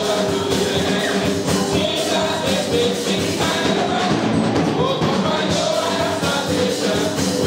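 Men's gospel vocal group singing praise with band accompaniment, drums keeping a steady beat.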